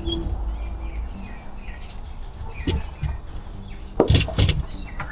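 Small birds chirping in the background, with a few knocks and clunks from the fuel tank being worked up into place: one about three seconds in and louder ones about four seconds in.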